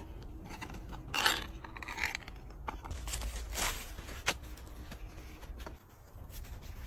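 Ring-pull lid of a tin can being peeled open: a loud crackling scrape of metal about a second in, then softer scraping and paper rustling, with a sharp click a little after four seconds.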